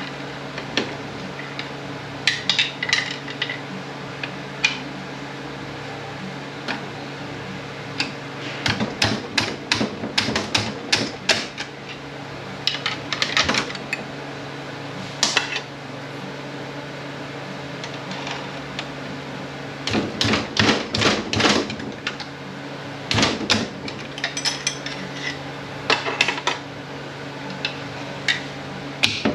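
Irregular metallic clicks and clinks of hand tools and steel parts while the tubes and bolts are taken off an Aisin Warner A340F (AW30-80LE) automatic transmission. The clicks come in short clusters with pauses between them, over a steady low hum.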